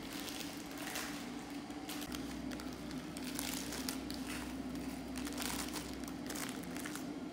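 Crinkling and rustling in many short crackles, over a steady low hum.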